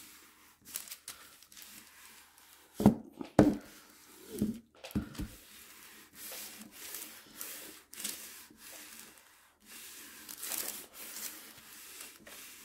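Household steam iron sliding back and forth over parchment paper, a papery rubbing and crinkling that comes in repeated strokes. A few dull knocks come about three to five seconds in.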